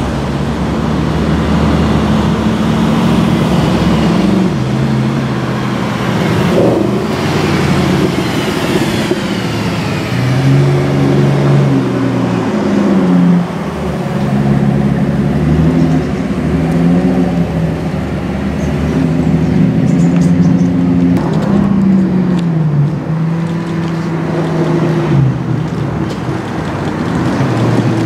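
The Maybach Exelero's 5.9-litre twin-turbo V12, with a Mercedes SLR McLaren alongside, driving slowly past at close range. The engine note rises and falls again and again as the cars pull away and ease off.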